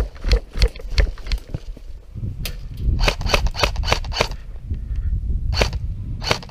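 Airsoft gun firing, a quick string of sharp snaps at about four a second in the middle and two single shots near the end, after a run of dull thumps like running footsteps.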